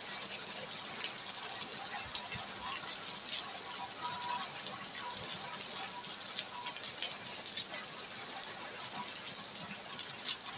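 Steady rain falling: an even hiss sprinkled with many small ticks of drops striking.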